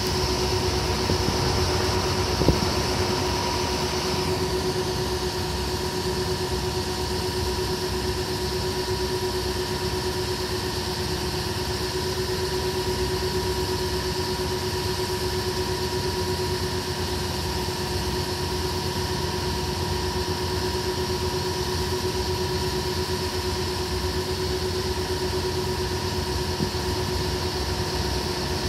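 Steady machine hum with a constant low tone and a fainter higher one over a hiss; the hiss drops a little about four seconds in, and there is one short click a couple of seconds in.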